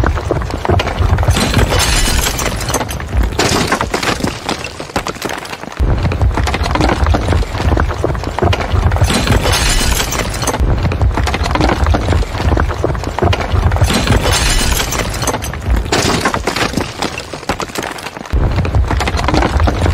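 Bridge-collapse sound effect: continuous crashing, cracking and shattering of breaking debris over a heavy low rumble. The rumble dies away and comes back in with a jump about six seconds in, and again near the end.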